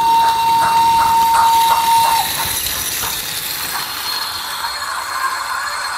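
Sound decoder of a Märklin H0 S 3/6 model steam locomotive playing through its small speaker. A steam whistle is held steadily and cuts off about two seconds in, over a steady chuff of about two to three beats a second, and then running hiss continues.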